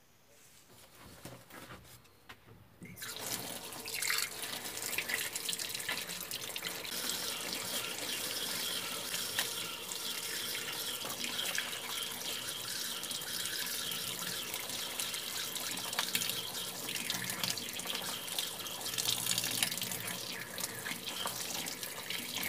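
Tap water running and splashing over hands as fresh herbs are rinsed in a sink, starting about three seconds in and running steadily.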